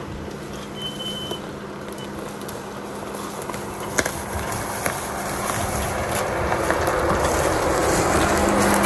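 Jeep Wrangler driving slowly along a dirt forest trail toward and past the listener, its engine running and its tyres rolling over dirt and leaf litter. The sound grows steadily louder as it nears, with a couple of sharp clicks about four and five seconds in.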